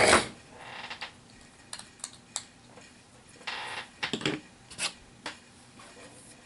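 Plastic HeroClix miniatures and booster packaging being handled: a loud clack at the start, then scattered light clicks and clacks with a few brief rustles.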